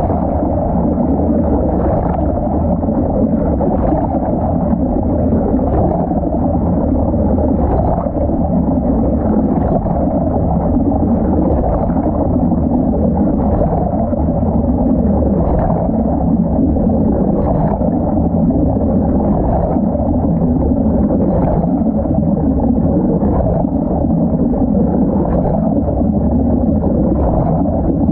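Washing machine running, heard from inside the water-filled drum: a loud, muffled churning rumble of sloshing water, with a faint knock about every two seconds.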